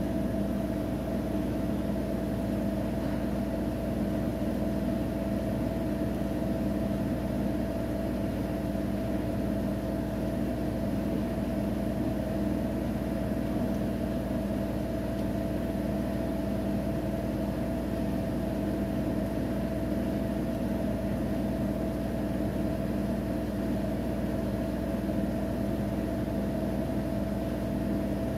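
Siemens iQ700 front-loading washing machine in its final spin, the drum turning at a steady high speed with an even motor hum and whine.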